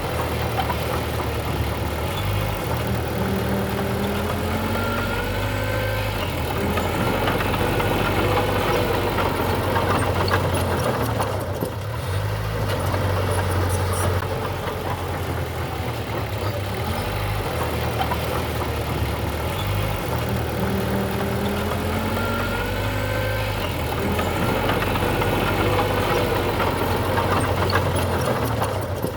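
Diesel engine of heavy earthmoving machinery running steadily, with faint squeals rising and falling in pitch a few times.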